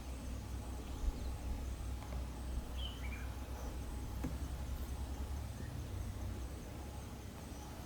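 Outdoor ambience: a steady low rumble, a faint thin insect whine, and a short bird chirp about three seconds in.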